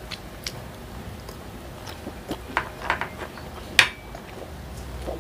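Close-miked eating sounds: scattered wet clicks and crackles of chewing, and a fork tapping against a sauce dish. About four seconds in, a single sharp metallic clink with a brief ring as the cutlery is set down on the plate or tray.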